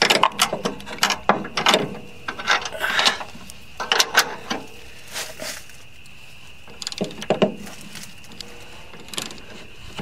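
Wrench clicking and clinking in irregular runs as it turns the adjustment bolts on a band sawmill's saw head, raising one side to bring the blade parallel to the bunks.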